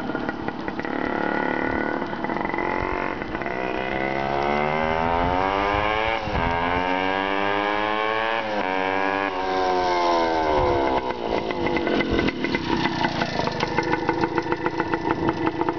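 1974 Hodaka Dirt Squirt's 100cc two-stroke single-cylinder engine accelerating through the gears, its pitch climbing and dropping back at two gear changes, then falling as the throttle is closed. From about three-quarters of the way in it settles to idling with an even, pulsing beat.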